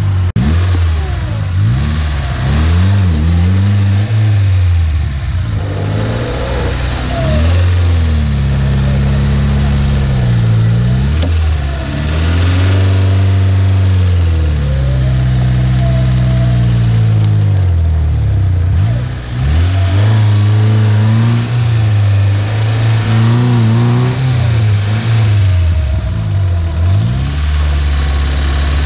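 Off-road vehicle's engine revving up and down again and again, rising and falling in pitch every few seconds, as it is driven through rough ground.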